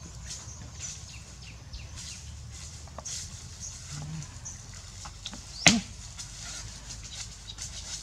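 Bare feet running over dry leaf litter, with scattered crackles and rustles, and one sharp, loud crack a little over two-thirds of the way through.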